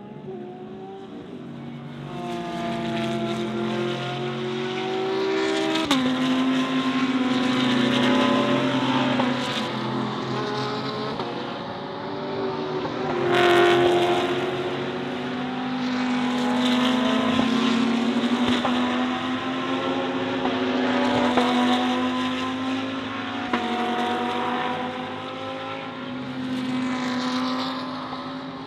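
GT race cars racing past at speed, a stream of them one after another: engines climbing in pitch under full throttle, dropping sharply at each upshift, several cars overlapping as they go by.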